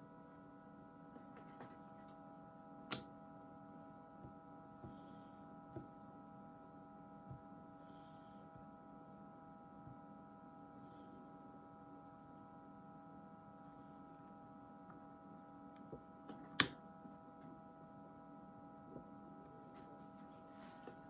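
Faint steady electrical hum from mains-powered bench equipment, broken by a few sharp switch clicks, the loudest about two-thirds of the way through as the transmitter's power supply is switched on and the valve transmitter comes up on carrier.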